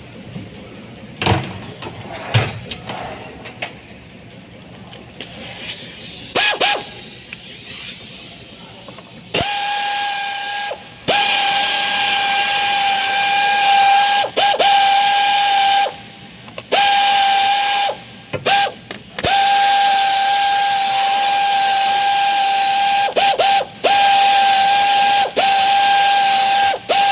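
Compressed air hissing from an air blow gun with a steady high whistle, in repeated bursts of a few seconds with short breaks, starting about nine seconds in. A few sharp clicks and knocks of tools on metal come before it.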